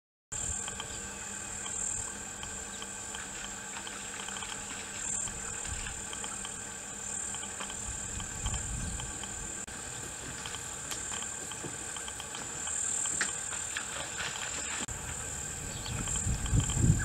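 High-pitched insect chorus, steady with slow slight swells. A low wind rumble on the microphone grows near the end.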